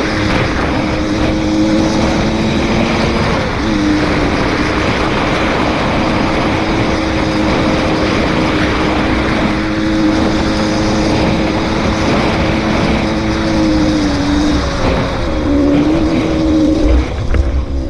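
Dirt bike engine running at steady high revs while riding, with wind rumble on the microphone. The engine note drops briefly about three and a half seconds in, and again dips and climbs back late on.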